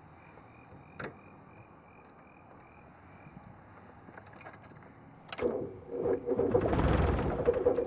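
A car's ignition key clicks, and the engine cranks over loudly and roughly for about two and a half seconds as the driver tries to restart a car that keeps stalling.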